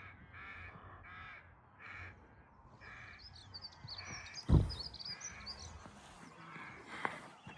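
A bird giving a run of short, harsh calls, about two a second at first and then further apart, with faint high chirps from other birds partway through. A single heavy thump about four and a half seconds in is the loudest sound.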